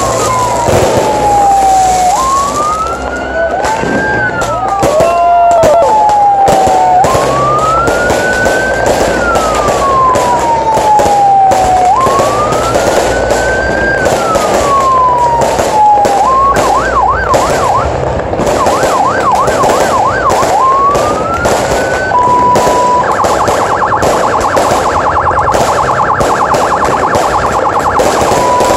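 Fireworks crackling and banging in a dense barrage, with an electronic siren sounding over them. The siren cycles through slow rising-and-falling wails, then a fast warble, a brief steady tone and a rapid pulsing pattern in its last few seconds.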